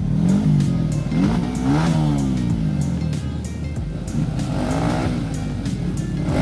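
Dirt-bike engines revving in repeated bursts as the bikes climb a steep muddy rut, the pitch rising and dropping about three times over a steadier running engine.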